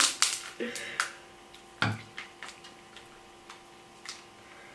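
Boiled king crab leg shells cracking and snapping as they are broken apart by hand: a quick run of sharp cracks in the first second, then scattered single cracks, one with a duller knock a little under two seconds in.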